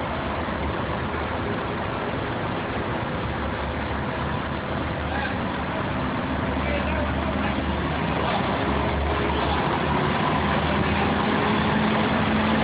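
Heavy engine running steadily. A steady hum comes in about ten seconds in and the level rises slightly toward the end, as if the engine is under more load.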